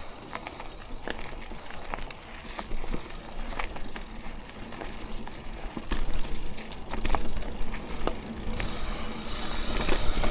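Mountain bike rolling over a rough trail: scattered clicks, knocks and rattles from the bike over steady rolling noise, with a low rumble coming in about six seconds in.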